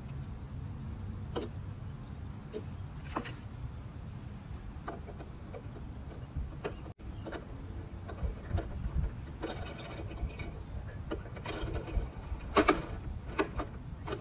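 Metal mounting hardware and hand tools clicking and clattering as RotoPax brackets are bolted together, over a low steady rumble. The sound breaks off for an instant about halfway, and the loudest cluster of clicks comes near the end.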